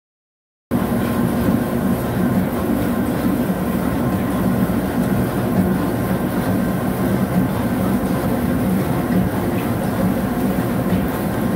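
Vertical turning lathe running, its table spinning a large steel separator drum under the tool: a steady heavy mechanical rumble that starts abruptly just under a second in.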